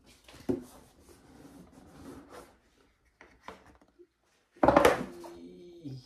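Light rubbing, scraping and small clicks of packaging and an item being handled, with a sudden louder burst of noise nearly five seconds in.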